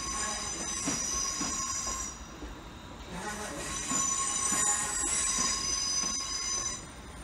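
Class 350 Desiro electric multiple unit squealing as it runs slowly into the platform: a high, many-toned metallic squeal in two long spells, fading briefly about two seconds in and returning about a second later, over a low rumble.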